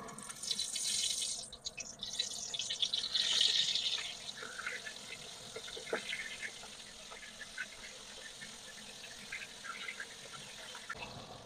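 Flour-coated oysters sizzling as they go into hot frying oil. The sizzle is loudest for the first four seconds, then settles to a steadier, quieter crackle with scattered pops.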